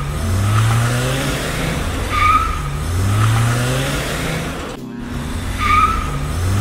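Recorded race-car sound effect: an engine revving up in rising sweeps with short tire squeals, repeating about every three seconds, with a brief cut a little before the end.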